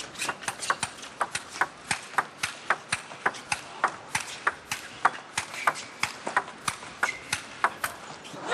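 Table tennis rally: the ball clicking off the bats and the table in a quick, even rhythm of about three to four hits a second, kept going for the whole point.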